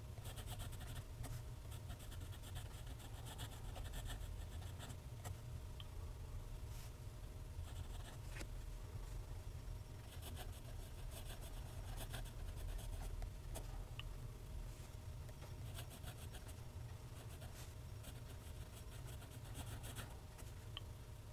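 Faint scratching of a TWSBI ECO fountain pen's steel nib gliding over Clairefontaine paper in cursive strokes, in short runs with brief pauses between words, over a steady low hum.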